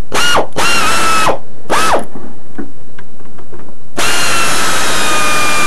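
Cordless power drill/driver run in three short bursts, its motor whine rising and falling each time, then a longer run of about two seconds from about four seconds in, the pitch sagging slightly under load. It is being used to remove fasteners from the engine.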